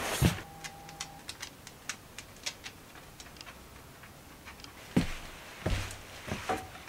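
Scattered light clicks and taps, then a few heavier thumps from about five seconds in as someone walks on a wooden floor.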